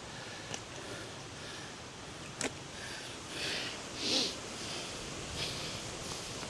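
Footsteps and rustling through rough outdoor ground, with two light knocks and several short hissy rustles over a steady background hiss.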